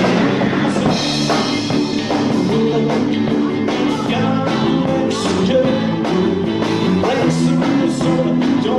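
Rock and roll music with guitar, drums and singing.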